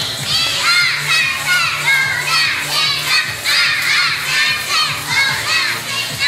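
A group of young children shouting a cheer together, many high voices in quick, rhythmic calls.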